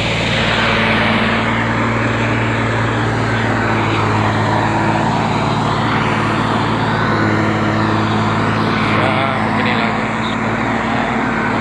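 Heavy earthmoving machine's diesel engine running steadily at a constant speed, a low, even drone.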